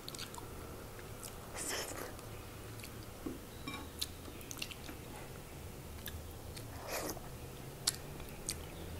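Close-miked chewing of a mouthful of rice and pork, soft and wet, with a few sharp mouth clicks and smacks scattered through.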